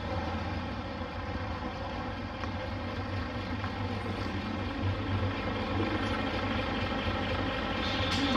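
Nissan Diesel city bus's diesel engine running, a steady low hum as the bus draws up and stands at the stop. A brief sharp hiss comes near the end.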